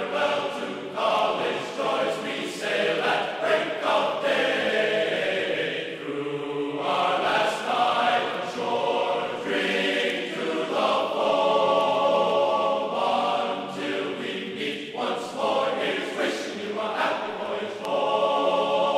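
Background music with voices singing in held, choir-like notes.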